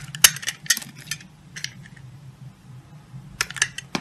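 Snap-off utility knife blade shaving curls off a bar of soap: crisp crackling scrapes in four short bursts, the last near the end, over a faint steady low hum.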